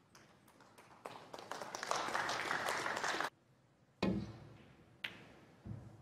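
Audience clapping that builds and then cuts off abruptly about three seconds in. Then a snooker shot: the cue tip strikes the cue ball with a solid knock, a sharp click of ball on ball follows about a second later, and a ball hits the cushion with a dull knock.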